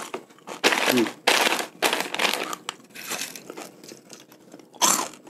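Crispy fried macaroni snack crackling and rustling as fingers scoop a handful from a plate, with crunchy chewing, in uneven noisy bursts.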